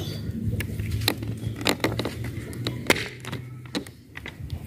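Rusty steel barrel bolts on a sheet-metal enclosure door being worked by hand: a run of irregular metallic clicks and clacks, with the door swung open near the end. A steady low hum runs underneath.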